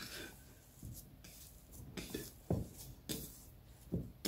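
Hands kneading a soft oil-and-flour pastry dough in a terracotta bowl: quiet squishing and a few irregular soft thumps as the dough is pressed against the bowl.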